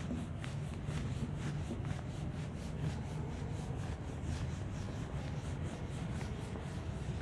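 Whiteboard duster rubbing across a whiteboard in quick repeated back-and-forth strokes, erasing the board, over a low steady hum.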